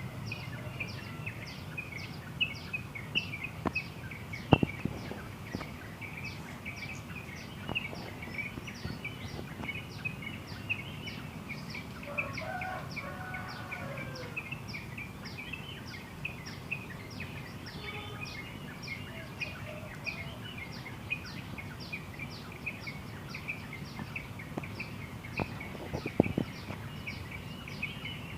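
Several birds chirping and twittering together over a high, evenly repeated note about two to three times a second. A lower call sounds briefly about halfway through, with a few soft knocks near the start and near the end.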